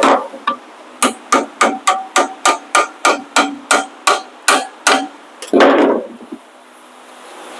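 Hammer striking metal on a truck's rear brake assembly: one blow, then a quick, even run of about fifteen ringing taps, some three a second. A longer, louder clatter follows about five and a half seconds in.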